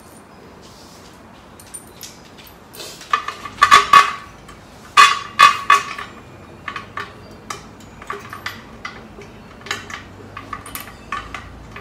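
Metal parts clinking and tapping as a steel exercise-equipment frame is bolted together, hardware knocking against the steel tubing. A cluster of loud, ringing clinks comes a few seconds in, then lighter, scattered taps.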